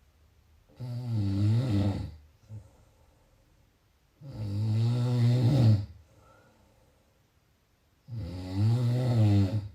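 Snoring: three long pitched snores, one about every three and a half seconds, each lasting over a second, with quiet between.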